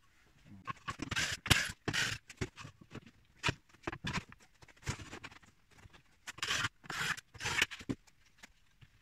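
Wooden packers and a chipboard board being handled and set in place on a workbench: a series of irregular scrapes and short knocks, loudest about a second and a half in and again around seven seconds in.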